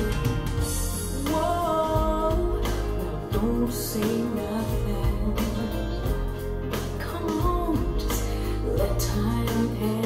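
A pop song with a woman singing over guitar and bass, played back through a pair of Canton GLE 436 bookshelf speakers and recorded in the listening room. The vocal line comes in about a second in.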